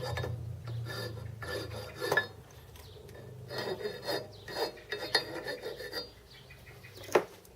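Hand file rasping on metal: a series of scraping strokes in two runs, with a low hum fading out in the first two seconds and one sharp click near the end.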